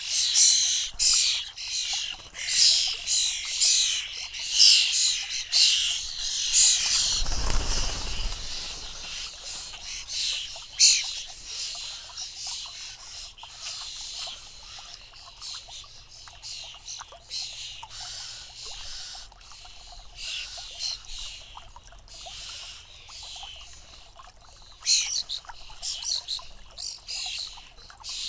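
European starling fledglings calling, a dense run of harsh, high chirps at the start that thins out, then picks up again near the end. About seven seconds in comes a brief low rushing whoosh.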